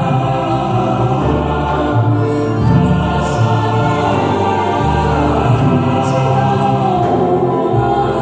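Choir singing with orchestral accompaniment, over a low bass line that moves to a new note about every second.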